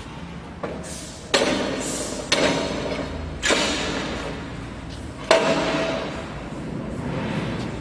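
Four sharp knocks, each followed by about a second of fading ringing and hiss.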